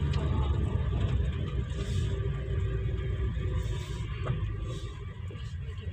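Car engine and tyre noise heard from inside the cabin while driving, a steady low rumble that eases slightly near the end.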